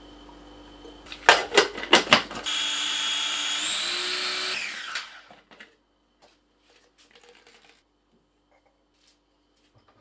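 Small electric food processor chopping garlic, parsley and basil with olive oil: a few knocks as it is handled, then the motor runs for about two seconds, steps up in pitch shortly before it stops, and winds down.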